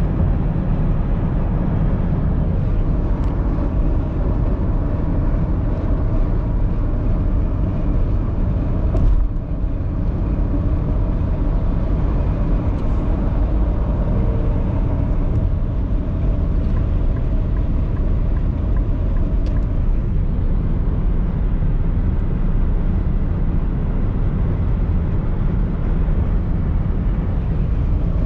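Steady road noise from inside a car at highway speed: tyre and engine rumble heavy in the low end, with a brief knock about nine seconds in.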